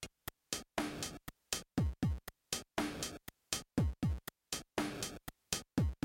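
Electronic background music with a drum-machine beat, chopped into quick stabs with silent gaps between them, and deep bass notes that slide down in pitch.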